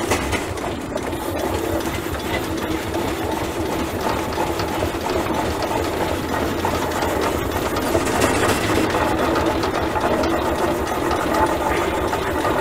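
A 1920 Huber steam traction engine running, its engine and steam exhaust going steadily at an even level.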